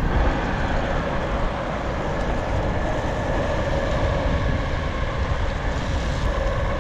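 Verreal RS electric skateboard with dual belt-drive motors, riding along asphalt: a steady rumble from the wheels rolling on the road, with a faint even hum from the motors.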